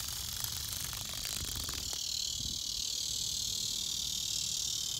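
Steady, high-pitched insect chorus that drones on without a break, with faint low rustling and knocking underneath.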